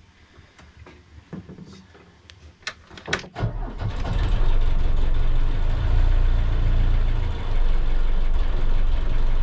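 Sailboat's inboard diesel engine being started after its glow plugs are preheated: a few light clicks, then about three seconds in it catches and settles into a steady idle.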